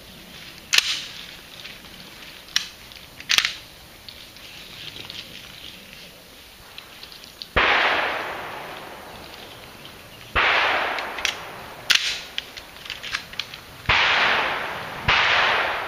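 Shotgun shots at a sporting clays course, each with a long echoing tail: one about 7.5 s in, one about 10 s in, and a quick pair a little over a second apart near the end. A few sharp clicks and knocks come earlier.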